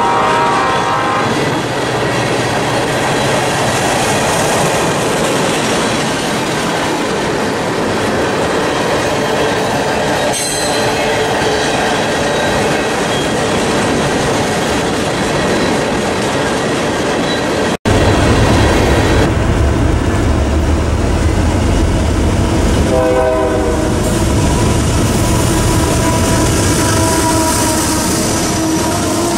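Freight train of tank cars rolling past, with steady clickety-clack of the wheels on the rails and a tone fading out in the first second. Then, after a cut, two GE AC4400CW diesel-electric locomotives pass close by with a deep engine rumble, and a brief tone sounds about two-thirds of the way through.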